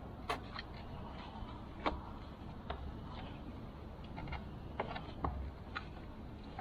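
Irregular light clicks and knocks of hand tools and metal being handled while working at a motorcycle's stuck oil filter, over a steady low background noise.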